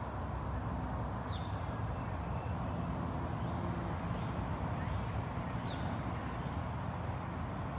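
Outdoor ambience: a steady low rumble of background noise, with a few short, high bird chirps, one about a second in and several more around the middle.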